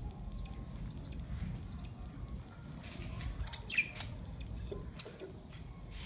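Budgerigars chirping and chattering in short high calls, with one louder falling squawk about two-thirds of the way in, over a low rumble.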